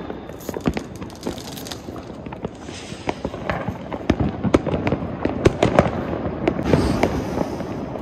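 Firecrackers going off: irregular sharp bangs and cracks that come faster from about three seconds in.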